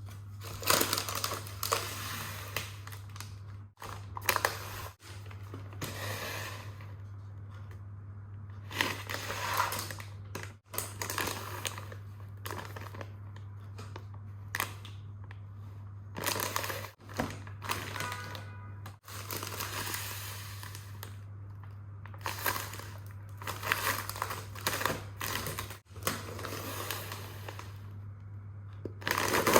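Plastic bags and packaging crinkling and rustling in short bursts as items are handled, over a steady low hum. The sound breaks off abruptly several times.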